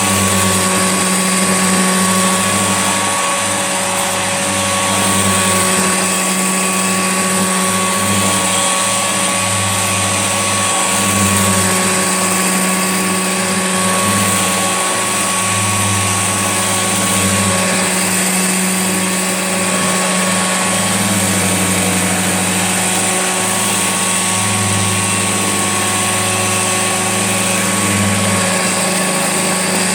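Old Hoover Junior upright vacuum cleaner running steadily, with a constant high whine over its motor hum; the lowest part of the hum swells and drops unevenly.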